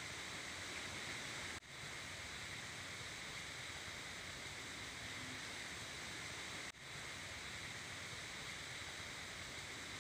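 Steady rushing hiss of river water flowing, with no speech. The sound cuts out for an instant twice, about a second and a half in and near seven seconds.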